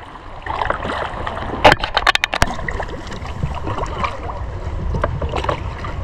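Kayak paddle strokes splashing and dripping in calm water, with a quick run of sharp knocks about two seconds in. A low rumble of wind on the microphone runs underneath.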